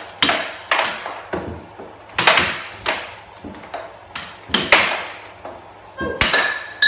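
Air hockey rally: a plastic puck clacking sharply off the hand-held mallets and the table's rails in quick, irregular succession, about two hits a second, each with a brief ringing tail.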